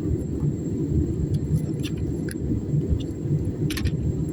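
Steady low rumble of an airliner cabin during the descent: engine and airflow noise. A few faint light clicks come through over it.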